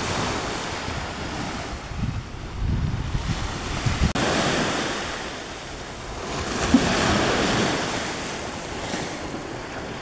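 Small sea waves washing up onto a sandy shore, their hiss swelling about seven seconds in. Wind buffets the microphone with a gusty rumble in the first few seconds.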